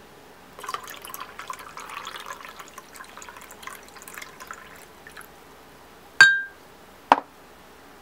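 Milk poured from a small glass jar into a glass mug of coffee, splashing for about four and a half seconds. A moment later a single ringing glass clink as the jar is set down, then a lighter knock about a second after.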